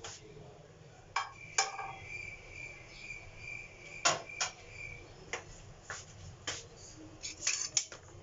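Scattered sharp knocks and clicks of household items being handled, with a steady high-pitched tone lasting about four seconds from a second or so in.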